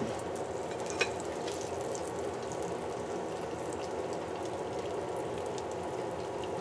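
Whole tilapia frying in shallow oil in a pan: a steady sizzle with scattered small crackles and pops, one sharper pop about a second in.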